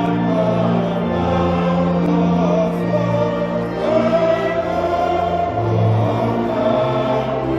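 A choir singing in slow, held notes over a steady low accompaniment.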